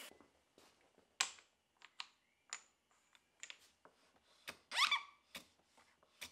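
Light taps and clicks of a thin pine strip being handled and set against the fence of a saw angle guide on a wooden bench. About five seconds in there is a brief, louder scrape.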